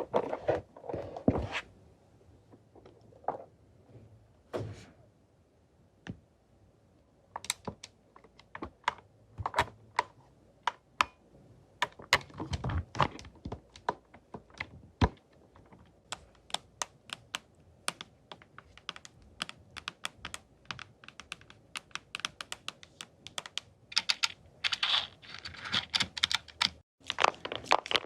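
ASMR tapping triggers: quick, irregular light taps and clicks on hard objects, with a denser, scratchier stretch near the end.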